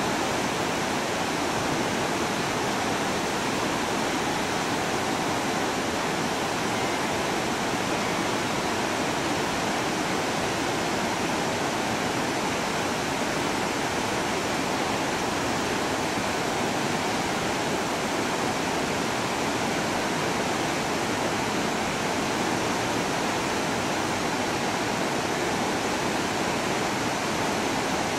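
The Bhagirathi, the upper Ganga at Gangotri, rushing past in a steady, unbroken torrent of water noise.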